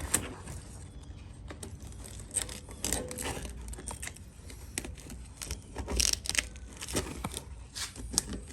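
Handling noises from parts being fitted to a side-by-side: scattered clicks, knocks and rustling, with the loudest bursts about 3 s and 6 s in.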